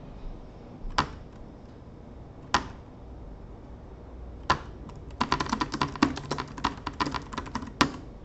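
Computer keyboard: three separate key clicks, then a quick run of typing starting about five seconds in, ending with one sharper click.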